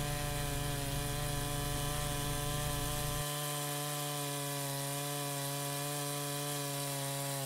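Chainsaw running at steady full throttle in a chainsaw mill, ripping a 2-inch slab from a white oak log, its pitch holding even under load. The deepest part of the hum drops away about three seconds in.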